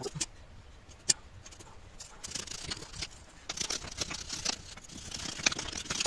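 Packed casting sand being knocked and scraped off a freshly cast Pelton wheel bucket with a hand tool: gritty crumbling and scraping with many small clicks, and one sharp click about a second in.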